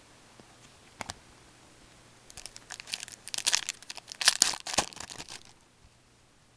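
A foil hockey card pack (2007-08 Fleer Ultra) being torn open. A single click about a second in, then the wrapper crinkles and tears for about three seconds, loudest near the end.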